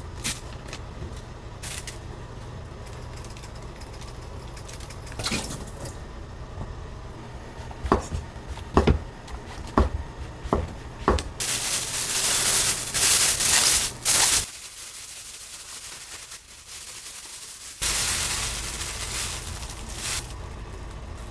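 Kitchen knife slicing a king oyster mushroom on a wooden cutting board, a handful of sharp knocks on the board. Then a plastic bag of frying flour crinkling loudly as it is shaken, in two spells with a quiet gap between.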